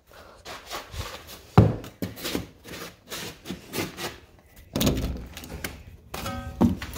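Knocks and rubs of an interior door being handled and pushed open, with a thump about a second and a half in and a short squeak near the end.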